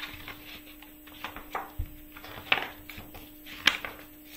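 A picture book being handled and its cover opened: a few sharp taps and knocks, the loudest a little past halfway and another near the end, over a faint steady hum.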